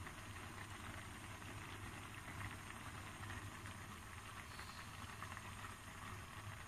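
Spaghetti boiling in a pan of water on a lit gas hob: a faint, steady low rumble and hiss.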